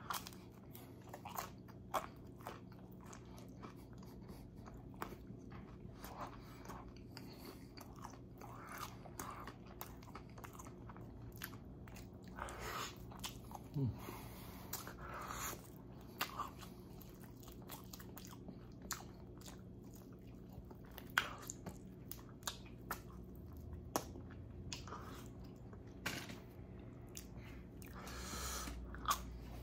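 A person biting and chewing pizza and chicken wings: scattered wet mouth clicks and crunches of pizza crust, over a faint steady hum.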